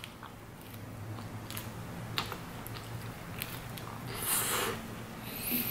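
Close-miked chewing of toast topped with barbecue jackfruit 'pulled pork': soft wet mouth clicks and smacks, with a louder hissy burst about four seconds in, over a faint low hum.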